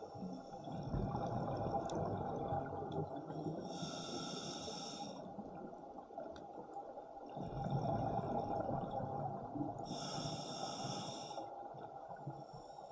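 Scuba diver breathing through an open-circuit regulator underwater: two long exhales of gurgling bubbles, each followed by a short hissing inhale through the regulator, on a slow cycle of about six seconds.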